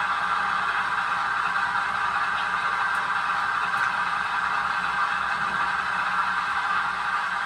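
Sound unit of a 1/6-scale Armortek Chieftain RC tank playing a simulated tank engine running sound, steady at a constant pitch.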